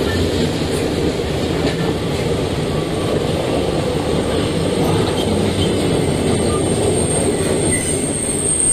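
Freight train rolling past with a steady, unbroken rumble of wagons on the rails. A thin high-pitched squeal builds near the end.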